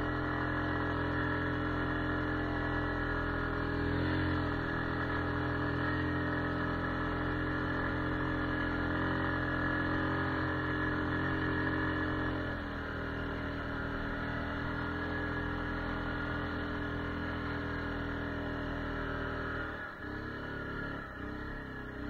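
ATV engine running at a steady speed, a constant droning hum. About twelve seconds in it drops a little in level and pitch, and near the end it eases off and dips.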